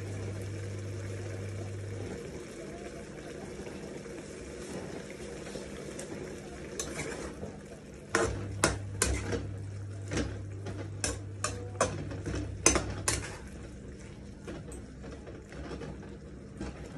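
A metal spatula stirring and scraping beef around a hot pan over a steady sizzle of frying. Partway through comes a run of a dozen or so sharp clanks of the spatula against the pan, lasting about six seconds.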